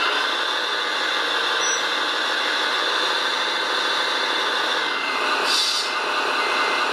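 Steady truck engine running sound from an RC model's sound module, with a short air-brake hiss about five and a half seconds in.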